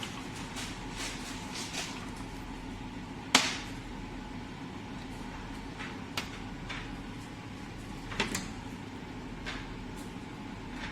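Scattered clicks and knocks of small metal parts and tools being handled while a diesel injector is taken apart, the sharpest knock about three seconds in, over a steady low hum.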